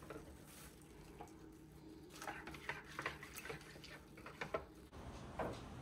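A hand swishing through soapy water in a sink, with faint splashes and a few small clinks.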